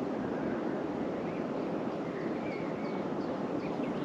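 Steady low outdoor background rumble beside a lake, with a few faint, short bird chirps scattered through it.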